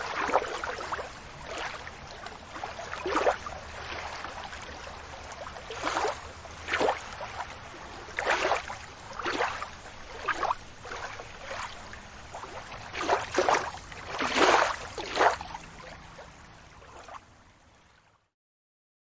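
Water lapping and splashing in short, irregular slaps, over a faint steady low rumble; it fades out near the end.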